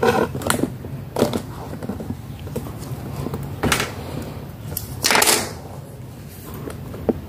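Handling noise on a workbench: a few short knocks, clatters and scrapes as motor parts are picked up and set down, the longest about five seconds in. A steady low hum runs beneath.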